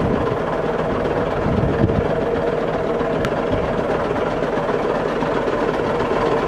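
An engine idling steadily: a continuous hum with a few steady tones.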